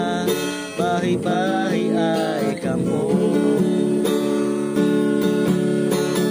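Background music led by strummed acoustic guitar, with a gliding melody line over it in the middle.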